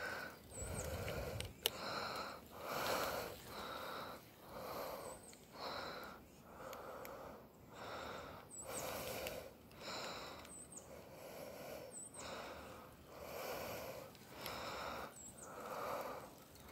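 A person breathing close to a phone microphone, even in-and-out breaths about once a second.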